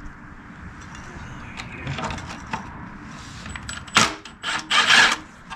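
Milwaukee M18 cordless impact driver running in three short bursts about four seconds in, after light clinks of metal tools and parts being handled.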